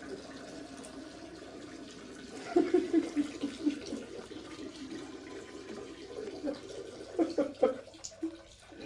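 Steady stream of running water in a bathroom, with short bursts of laughing about two and a half seconds in and again near the end.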